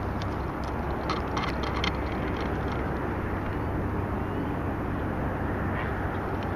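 Steady low outdoor rumble, like distant traffic, with a few light clicks and ticks in the first couple of seconds.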